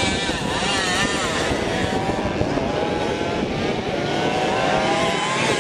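Several Simson two-stroke moped engines racing, revving up and down through the bends and gear changes, their pitches rising and falling and overlapping.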